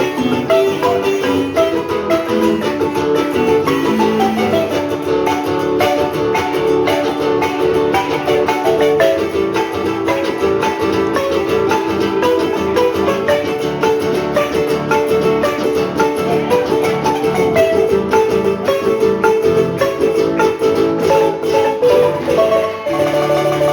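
Marimba played with mallets: quick runs of struck notes over held, rolled tones, with the music shifting to a lower bass near the end.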